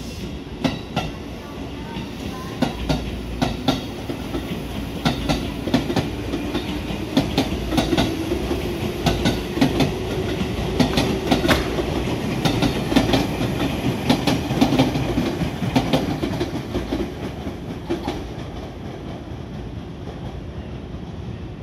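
A JR West 221 series electric train pulling away: wheels clicking irregularly over rail joints and points, with a motor note that rises as it gathers speed. The sound fades as the train draws off near the end.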